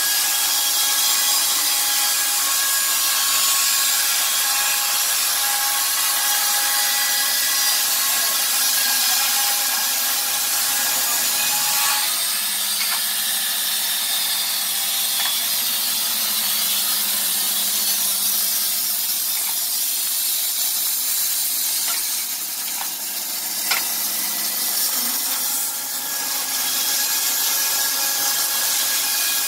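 Wood-Mizer LT15 portable band sawmill running on its electric motor, the band blade sawing lengthwise through a squared timber with a steady whine and hiss. The sound shifts about twelve seconds in, and there is a single sharp knock about three-quarters through.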